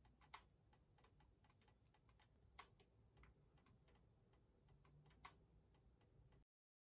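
Near silence: faint room tone with scattered soft clicks, three of them a little louder and about two and a half seconds apart. The sound cuts off to dead silence just before the end.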